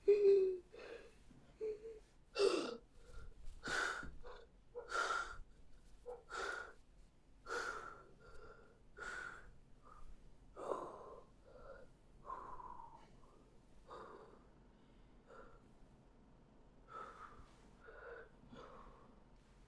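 A boy's heavy, gasping breaths, about one every second and a half, fading and spacing out after about twelve seconds.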